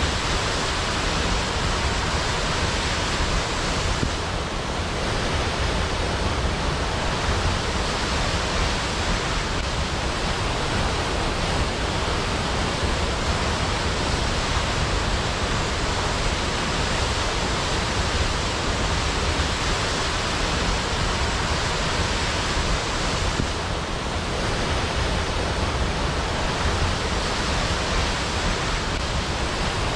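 Waterfall: a steady, even rush of falling water used as white noise, with no separate splashes, easing slightly in loudness twice for a moment.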